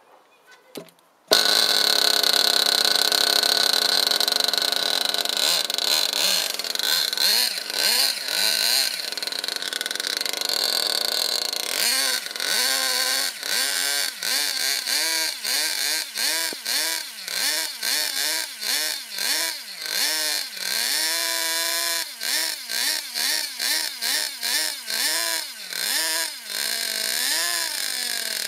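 A GS Racing Storm nitro RC buggy's small glow-fuel engine catches about a second in and runs with a high-pitched buzz. From about halfway on it is revved again and again, its pitch rising and falling about one and a half times a second.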